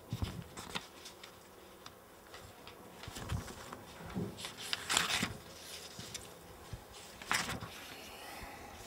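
Paper pages being turned and leafed through, a series of short crisp rustles, the loudest about five seconds in and again a little after seven seconds.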